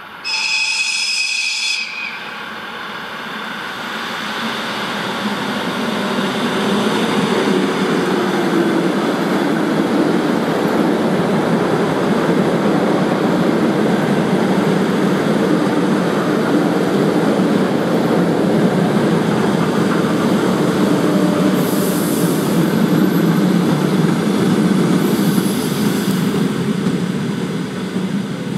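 ER9M electric multiple unit sounding a short, high horn blast, then running past with a loud, steady rumble of wheels and traction motors that builds over the first few seconds. Two brief hisses come near the end.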